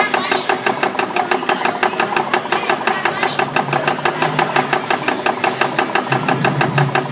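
Antique coin-operated Gatling gun arcade game in action, its mechanism clattering in a rapid, even rhythm of about six clacks a second, with a low motor hum growing louder near the end.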